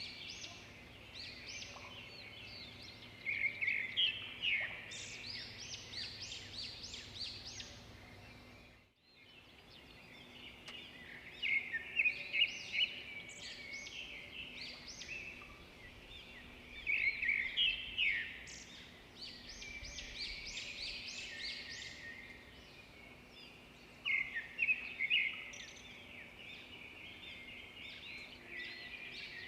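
Birds chirping and singing, with louder bursts of quick calls about every six seconds over a steady outdoor background. The sound cuts out briefly about nine seconds in.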